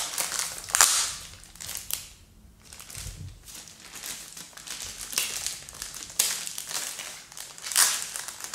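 Clear plastic bag crinkling and rustling as it is handled and pulled open around plastic model-kit sprues, in irregular bursts, loudest just under a second in and again near the end, with a quieter stretch about two seconds in.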